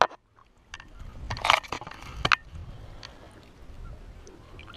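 Water splashing and lapping against the side of a boat as a fish is held at the surface and released by hand. Two sharp splashes or knocks come about one and a half and two and a half seconds in, over a low rumble.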